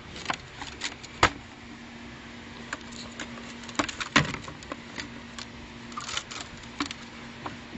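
Pink plastic exercise ball rolling across carpet with a ferret scrabbling inside: irregular plastic clicks and knocks, the sharpest about a second in and about four seconds in, over a steady low hum.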